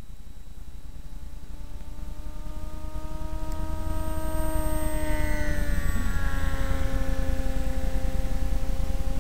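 Propeller of a model airplane droning in flight, growing louder, its pitch rising gently and then dropping about six seconds in. A low rumble runs underneath.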